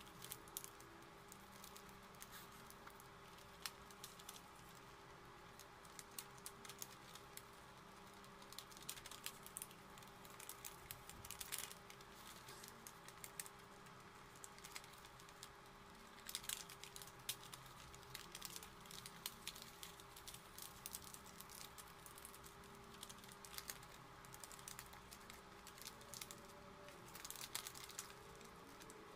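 Paper being folded and creased by hand: faint, irregular crackles and clicks from the stiff paper, busier in a few stretches, over a faint steady hum.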